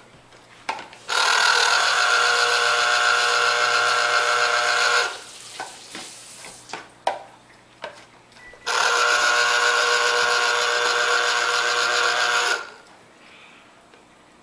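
Electric citrus juicer running in two spells of about four seconds each as a lime half is pressed onto its spinning reamer, giving a steady, high-pitched motor whine. A few light clicks and knocks fall in the gap between.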